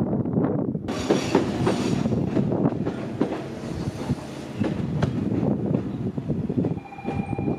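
JR Shikoku 8600 series electric express train running along the station tracks, its wheels clattering over rail joints and points in a string of knocks. A brief steady tone sounds near the end.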